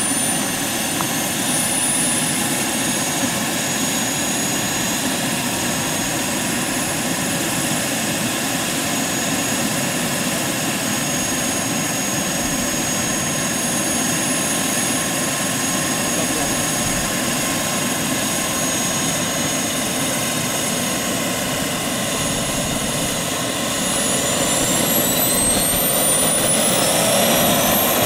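Taurus model gas turbine of a large-scale radio-controlled Mil Mi-24 helicopter running, a steady high whine over a broad rush. Near the end the whine climbs in pitch and grows a little louder as the turbine speeds up.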